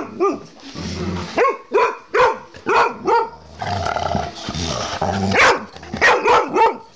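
Two dogs, an Irish Setter and a chocolate Labrador, play-fighting: low growling broken by two quick runs of short, sharp barks, about seven in the first half and three or four more near the end.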